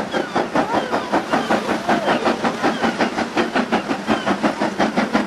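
Steam locomotive working hard with a passenger train, its exhaust beats coming evenly at about four to five a second.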